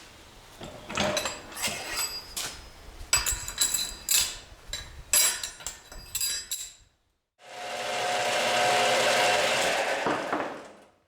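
Metal parts and hand tools clinking and knocking in quick, irregular strikes with a metallic ring. After a short break a power tool runs steadily for about three seconds.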